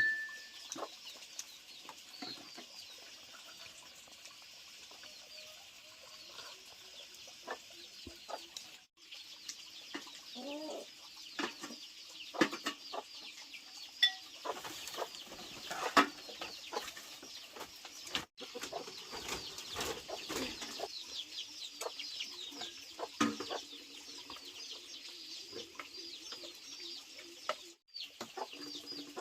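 Domestic chickens clucking on and off, with scattered sharp clicks and knocks and a steady high chirring behind.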